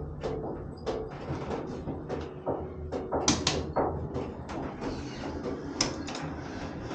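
Otis freight elevator doors sliding open with a run of sharp clicks and knocks, the loudest about three seconds in and again near six seconds, over a low steady hum.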